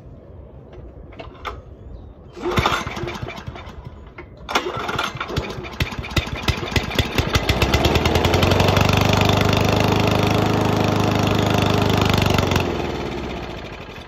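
Toro commercial walk-behind mower's Honda engine being pull-started: one pull that doesn't catch, then on the next it fires on the brake cleaner sprayed into the carburetor throat. It sputters up to speed and runs steadily for about four seconds, then winds down and dies once the cleaner is burnt off. Running only on the spray is the sign of a carburetor or fuel problem, maybe just old fuel in the bowl.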